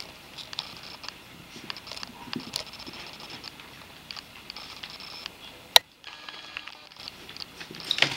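A small dog and a Doberman Pinscher play-wrestling on carpet: soft scuffling, pawing and mouthing with scattered light clicks. A single sharp click about six seconds in is the loudest sound, and there are more clicks near the end.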